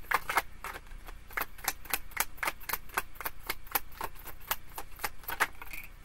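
A deck of tarot cards being shuffled in the hands, the cards clicking against each other in quick, irregular strokes, several a second.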